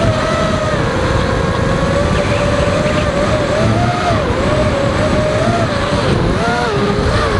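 ZMR X210 racing quadcopter's motors and propellers whining, heard from on board, the pitch rising and dipping repeatedly with throttle changes over a low rumble of wind and vibration.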